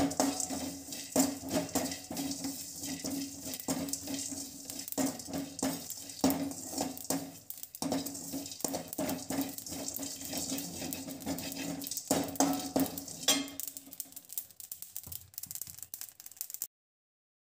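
Perforated metal ladle stirring and scraping curry leaves, cumin and pepper as they dry-roast in a metal kadai: a quick, irregular run of clicks and scrapes over a steady low hum. The sound cuts off abruptly near the end.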